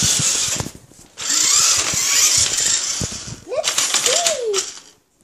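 Toy radio-controlled monster truck's small electric motor and gears whirring as it drives, cutting out briefly about a second in, then a run of clicks and rattles before it stops near the end.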